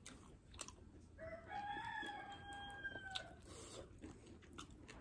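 A rooster crowing once, one call of about two seconds that rises at the start and then holds its pitch. Small mouth clicks of chewing run through it.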